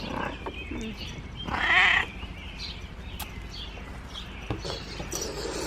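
An elderly domestic cat meowing once, a wavering call of about half a second, about one and a half seconds in.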